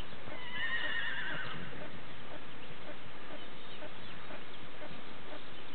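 A horse whinnies about half a second in, one wavering call lasting about a second, over soft, regular hoofbeats of a horse moving at a smooth gait.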